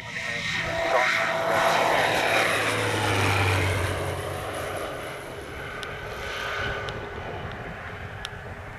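Single-engine propeller light aircraft flying low past, its engine and propeller growing loud, dropping in pitch as it goes by and then fading as it flies away.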